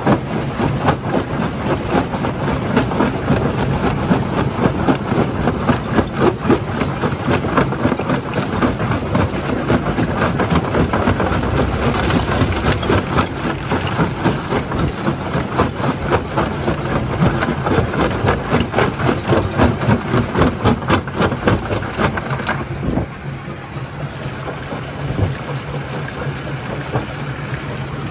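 Rock-quarry jaw crusher at work: dense rattling and clatter of stone being crushed over the steady hum of the plant's engine. The clatter thins out for the last few seconds while the hum carries on.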